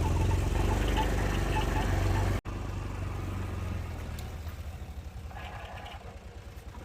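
ATV engine running at low speed with a steady low throb. About two and a half seconds in the sound breaks off sharply, and the engine goes on quieter, fading away.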